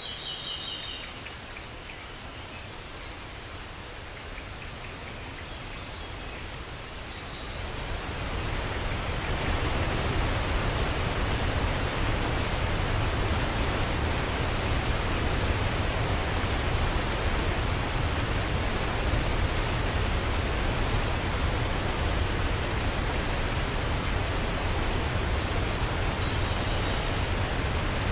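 Rushing water of Ban Gioc waterfall: a steady, even noise that swells about eight to ten seconds in and then holds loud and unchanging. A few short high chirps sound over the quieter opening.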